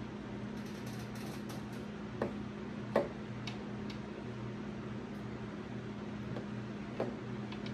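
A few sharp clicks and light ticks as a chainsaw's chain and 32-inch bar are handled, about two and three seconds in and again near the end, over a steady hum.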